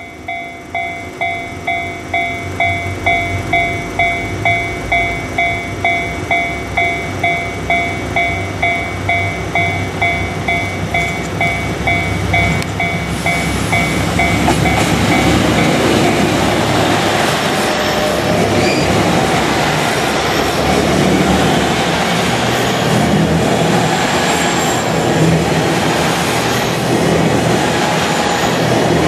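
Japanese level crossing warning bell ringing in a steady, even rhythm of about two strokes a second. About halfway through a train passes over the crossing, and the loud rumble of the train drowns out the bell.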